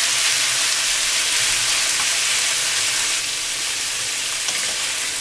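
Leftover marinated bulgogi beef with sliced vegetables sizzling steadily in a lightly oiled wok as it is stir-fried with a wooden spatula.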